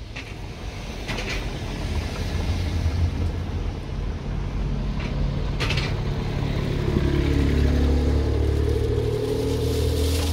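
A motor vehicle's engine running close by, a steady low rumble that grows louder from about seven seconds in, with a hum rising slowly in pitch.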